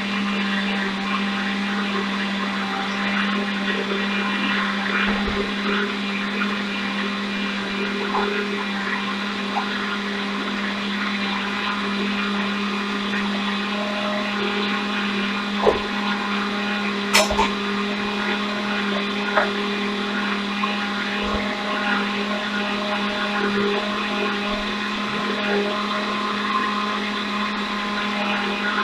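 Countertop blender running steadily, blending a jar of liquid banana pudding mixture, with a steady low hum under the whir. A few brief clicks about halfway through.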